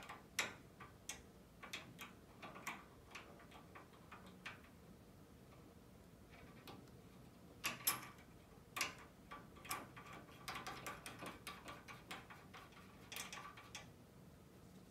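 Light metallic clicks and taps from a hand working a tuba's freshly oiled piston valve and its cap, scattered at first, with a quicker run of clicks about ten to thirteen seconds in.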